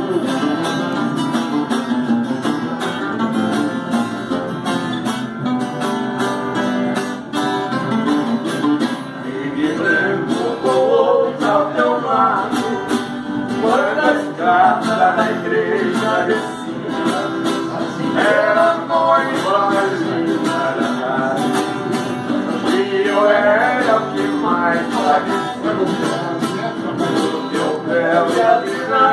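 Music played on rhythmically strummed plucked strings, guitar-like, with a singing voice joining about ten seconds in and carrying a melody over the strumming.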